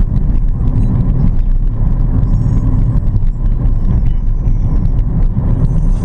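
Car driving along: a steady low engine and road rumble.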